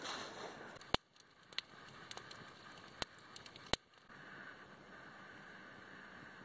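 Footsteps crunching in snow at first, then a wood campfire crackling with a few sharp, separate pops, then a quiet steady hiss.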